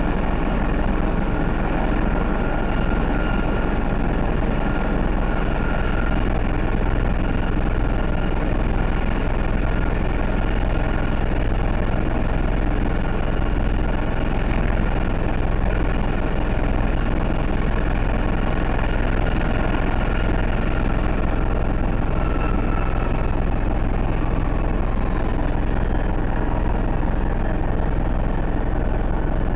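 Helicopter's turbine engine running steadily on the ground after landing: an even whine of a few held tones over constant engine noise, without change in pitch or level.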